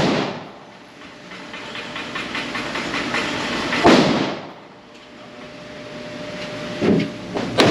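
PSA Dagger Compact 9mm pistol fired at a slow pace: shots right at the start, about four seconds in, and twice close together near the end, each with a ringing echo and a hiss between them.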